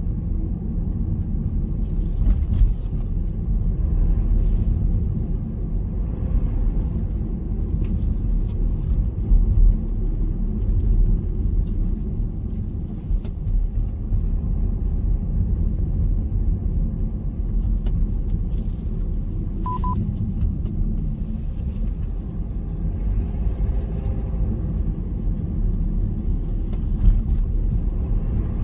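A car driving: steady low road and engine rumble with no sharp changes. A brief high double beep sounds about 20 seconds in.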